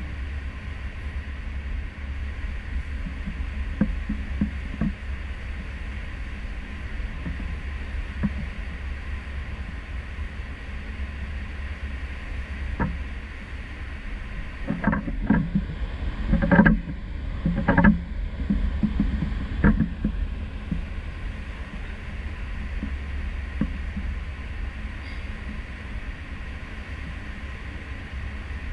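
Steady low rumble of a cruise ship under way at sea, heard from a stern balcony, with an even rush of wake noise over it. About halfway through comes a cluster of knocks and thumps lasting a few seconds.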